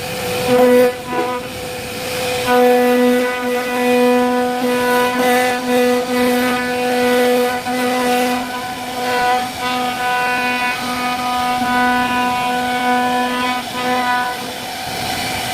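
CNC router spindle running with a steady whine while the bit carves wood, with a rougher cutting noise underneath. The whine breaks off briefly about a second in and then holds steady.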